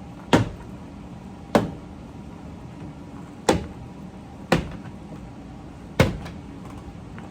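Five sharp snaps, a second or two apart, as the push-in body pins of a Daihatsu Move's wooden door card are pried loose from the door one by one.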